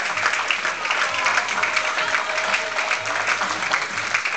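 Audience clapping, with music playing underneath.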